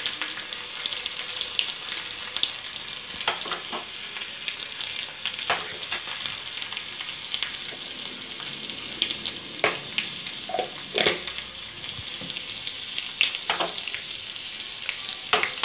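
Hot oil sizzling steadily in a small steel tempering pan as chopped shallots, mustard seeds and dried red chillies fry for a sambar tempering, with scattered sharp clicks.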